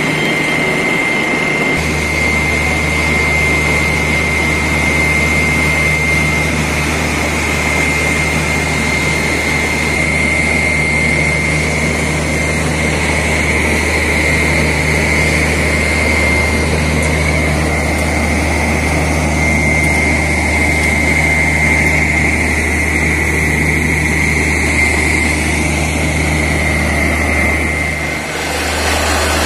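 Borewell drilling rig running steadily: a constant low engine drone with a steady high whine above it. The drone dips briefly near the end.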